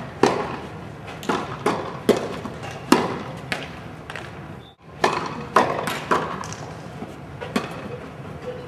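Tennis balls being hit with rackets and bouncing on the court: a string of sharp pops at uneven spacing, roughly one to two a second, with a brief break about five seconds in.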